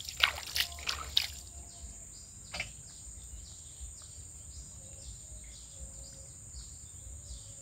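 A few wet squelches and clicks in the first second or so, with one more a couple of seconds later, as hands handle a hooked catfish in the mud. Behind them are a steady high insect drone and short chirps repeating a few times a second.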